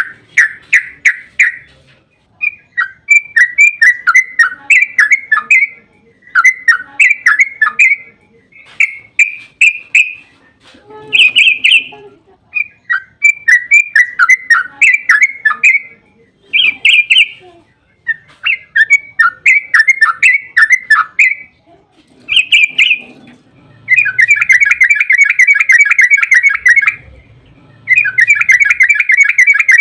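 Yellow-vented bulbul (trucukan) singing: a series of short, bubbly phrases of quick chattering notes with brief pauses. Near the end these give way to two long, rapid rolling trills, the 'ropel panjang' used to provoke other trucukan into answering.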